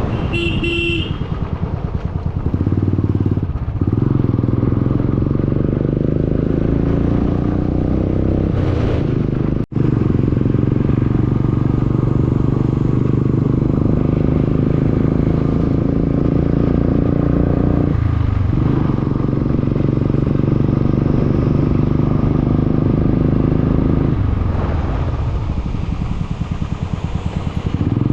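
Motorcycle engine with a loud silencer, ridden on the road: a steady engine note that drops and climbs back up a few times, as with gear changes.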